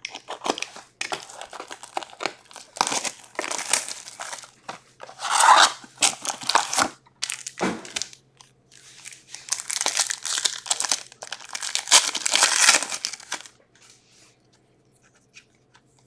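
Plastic and foil wrapping of a hockey card box and its packs being crinkled and torn open by hand, in uneven bursts of rustling and ripping that die away about two seconds before the end.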